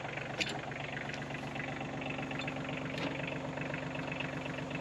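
Compact front-loader tractor's engine idling steadily, its note shifting slightly about half a second in, with a couple of short sharp clicks over it.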